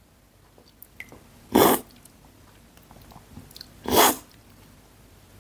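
Two loud slurps of brewed coffee from a tasting spoon, about two and a half seconds apart, drawn in hard with air to taste it, as in coffee cupping.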